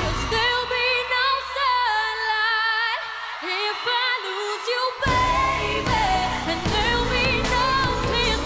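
A female vocalist sings a pop ballad with wavering, ornamented runs over sparse backing. The bass and drums drop out at first, and the full band comes back in about five seconds in.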